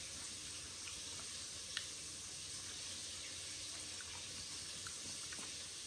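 Faint steady sizzle of chicken frying in oil, with a few soft crackles.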